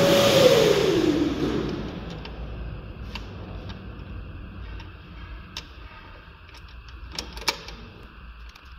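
A machine spinning down: a hiss with a whine that falls in pitch and fades over about two seconds. A few sharp clicks and taps follow as a hand works on parts under the car.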